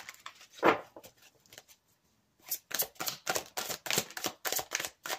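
Tarot deck being shuffled by hand: light handling at first, then from about halfway a quick run of papery card slaps, several a second.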